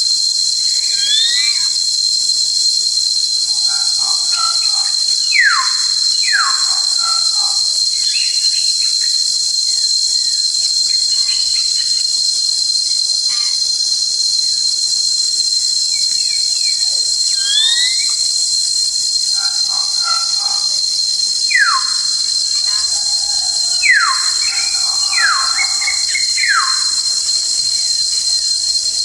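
Forest birds singing clear whistled notes that slide steeply downward, in runs of two to five. They sing over a constant high-pitched drone of insects such as cicadas or crickets.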